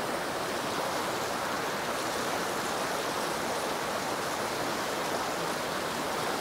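Fast-flowing stream rushing over rocks in riffles, a steady, even rush of water.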